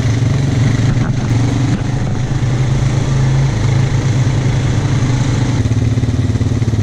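ATV engine running steadily close by, a loud, even hum with small changes in pitch as the throttle varies.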